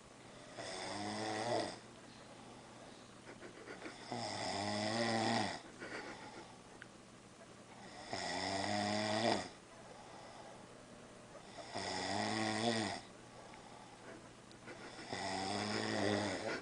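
A man snoring in deep sleep: five snores, one about every four seconds, each lasting a second or so and swelling in loudness before it stops.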